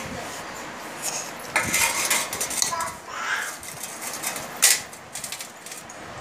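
Close-up eating sounds of fish curry eaten by hand: chewing and mouth smacks mixed with short clicks of handling food and a plate. The loudest is a sharp click about four and a half seconds in.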